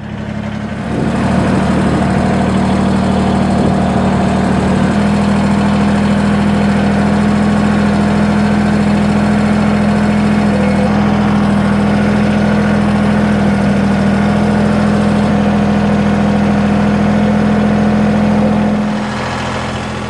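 Kubota compact tractor's diesel engine running at raised throttle in a steady drone. It revs up about a second in and drops back toward idle near the end.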